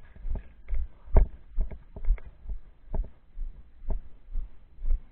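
A series of short, irregular knocks and thumps, one or two a second, the loudest about a second in.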